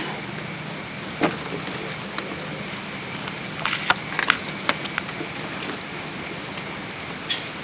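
Night insects trilling steadily in several high pitches, with a few short clicks and knocks around the middle as a hand works in the river water.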